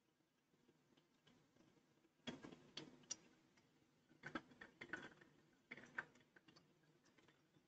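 Mostly near silence, broken by three short runs of faint clicks and ticks, about two and a half, four and a half and six seconds in, as hot water is poured from a gooseneck kettle into a paper-filter pour-over cone.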